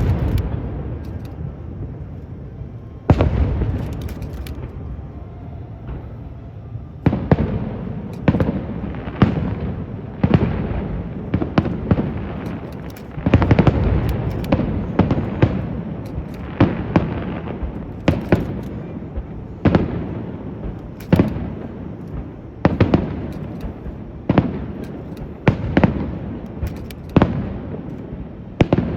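Aerial fireworks shells bursting in a show: sharp bangs about once a second, each trailing off in a rumbling echo, with one big burst a few seconds in.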